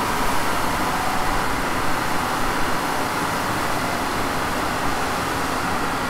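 SEAT Leon coasting down on a rolling-road dyno with the clutch engaged, its tyres and drivetrain spinning the rollers down through about 70 to 60 mph: a steady rushing noise. This is the coast-down phase after the power run, in which the dyno measures drivetrain and tyre losses.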